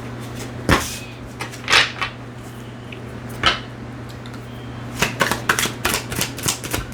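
A deck of tarot cards being handled and shuffled by hand: a few separate slaps and taps, then a quick run of card snaps from about five seconds in.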